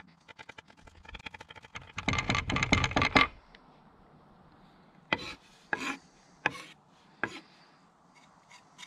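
Kitchen knife chopping garlic on a wooden chopping board: a fast run of knocks, loudest about two to three seconds in. It is followed by four single knocks of the knife, spaced a little under a second apart.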